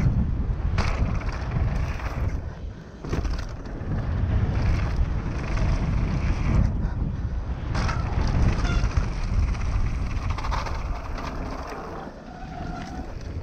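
YT Tues downhill mountain bike running down a trail: a steady low rumble of wind on the action camera's microphone and tyres on dirt, with bike rattle and a few sharp knocks from hits on the trail.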